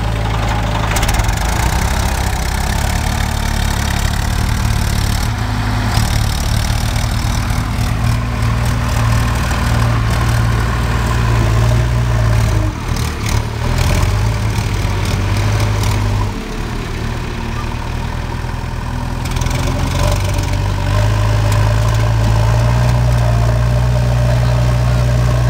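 Diesel engine of a JCB backhoe loader running steadily with a low drone while it pushes and levels soil with its front loader bucket. The engine note dips briefly a couple of times past the middle.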